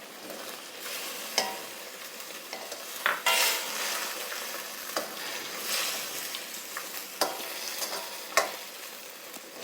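Chicken pieces sizzling in coconut oil and their own released juices in a pot, while a spoon stirs them, knocking and scraping against the pot about half a dozen times.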